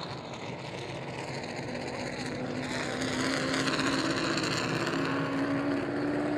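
Race truck engines running, with one engine note slowly rising in pitch as the sound grows louder about three seconds in.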